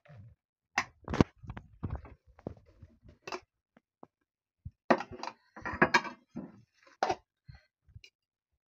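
A metal serving spoon scraping and knocking against a metal cooking pot and clinking on ceramic plates as pilau rice is dished out: irregular scrapes and clinks in two busy spells, about a second in and again from about five to seven seconds in.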